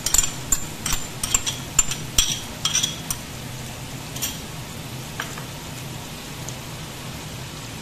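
Butter sizzling and bubbling as it melts in a hot non-stick frying pan. A run of sharp clicks and taps comes over the first three seconds, then a steady sizzle.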